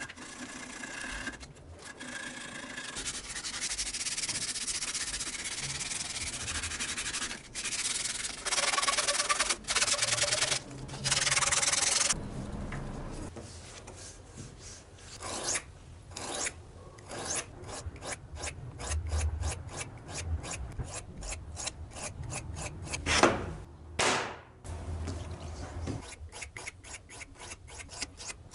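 Sandpaper rubbing back and forth on a wooden knife handle clamped in a vise. Partway through this gives way to a steel knife blade being stroked on a wet whetstone in quick, even, repeated strokes, one of them louder near the end.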